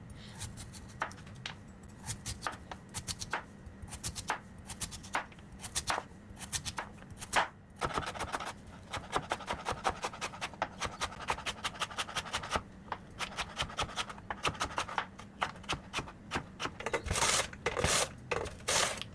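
Radish being cut for musaengchae, in many sharp cutting strokes that come singly at first, then in quick runs.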